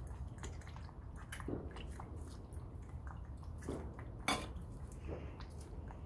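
Schipperke lapping water from a metal bowl, with irregular clinks and taps against the bowl and one louder knock about four seconds in.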